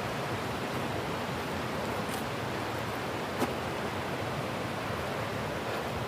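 Steady rush of fast-flowing mountain water, an even unbroken hiss, with one sharp click about three and a half seconds in.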